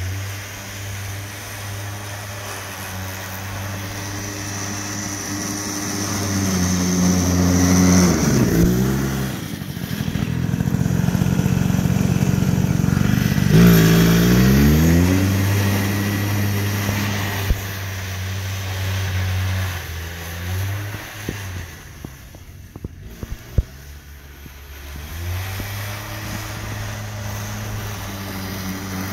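Arctic Cat Kitty Cat youth snowmobile engine running as it is ridden in laps. It gets louder twice, about a third and half of the way through, with the pitch sweeping up and down as it comes close and goes by, then fades for a few seconds near the end before coming back.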